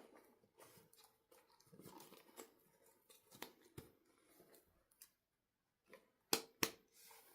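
Quiet handling of toys and plastic packaging: soft rustles and scattered small clicks, with two sharp clicks close together about six seconds in.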